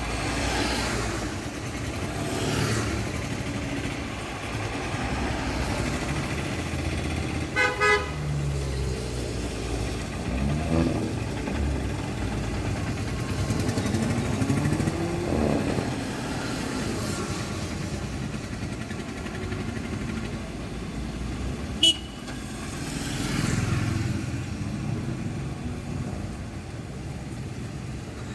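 Road traffic: cars and motorcycles running past, with engines rising in pitch as they pass. A short horn honk sounds about eight seconds in, and a brief sharp high beep comes past the twenty-second mark.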